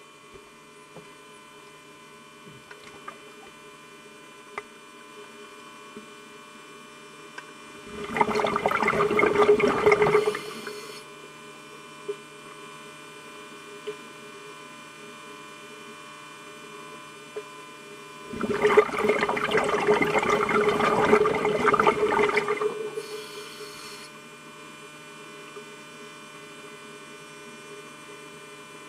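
Scuba regulator exhaust bubbling, two bursts of a few seconds each, about eight and eighteen seconds in, over a steady electrical hum from a camcorder inside an underwater housing.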